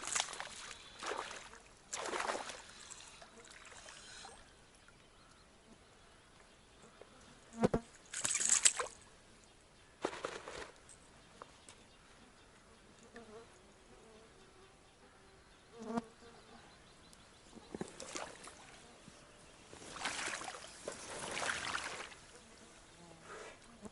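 Spinning reel being wound in bursts, with splashing water, as a hooked pike is brought in through the weeds.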